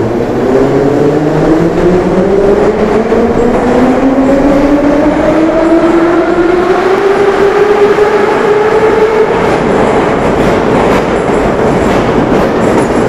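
81-717 'Nomernoy' metro train pulling out of the station, loud, its traction motor whine rising steadily in pitch as it gathers speed, over the rumble of the wheels on the rails.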